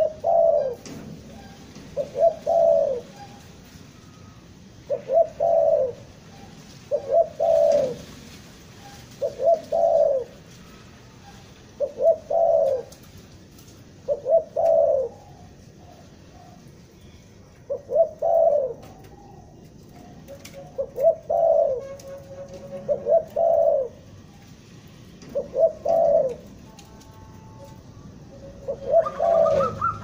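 Spotted dove (tekukur) cooing over and over: a short phrase of a few low notes about every two seconds.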